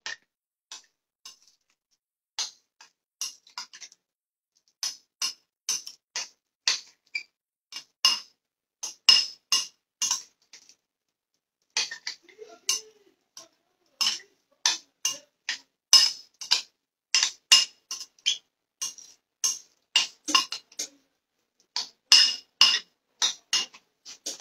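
Metal spoon clinking against a glass bowl while stirring chopped strawberries: irregular sharp clinks, two or three a second, with a brief pause about halfway through.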